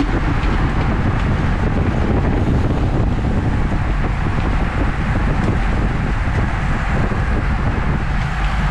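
Steady wind rush over the microphone of a camera on a bicycle moving at about 23 mph in a race pack.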